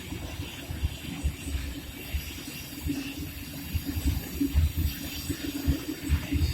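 Freight train hauled by two Re 620 electric locomotives rolling past: a steady hiss of rail noise over a constant low hum, with irregular low rumbling thumps.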